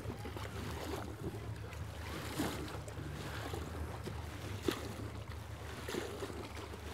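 Faint water splashing from a single paddle sculling at the bow of a coracle, with a couple of soft knocks, over a low steady wind rumble on the microphone.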